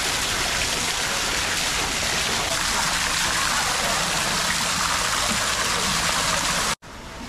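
Artificial waterfall: a sheet of water pouring from a roof edge into a shallow pool, a steady rushing splash that cuts off suddenly near the end.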